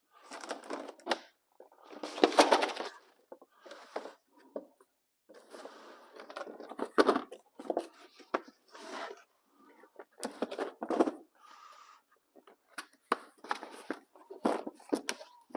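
Plastic packaging rustling and tearing in irregular bursts, mixed with scattered clicks and knocks of metal tools being handled. The loudest rustle comes about two seconds in.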